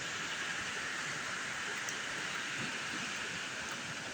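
Water pouring over a man-made waterfall on a creek: a steady rushing hiss.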